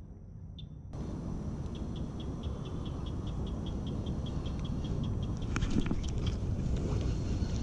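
Rapid, evenly spaced chirps from a calling animal, about four a second, over a low rumble of wind noise on the microphone. A few sharp clicks come near the end.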